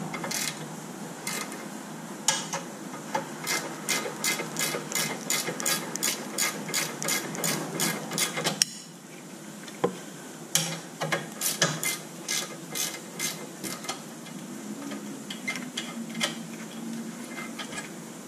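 Ratcheting wrench clicking in quick, even strokes as a nut at the lower ball joint is backed off. The clicking breaks off briefly about halfway, then goes on more sparsely and faintly near the end.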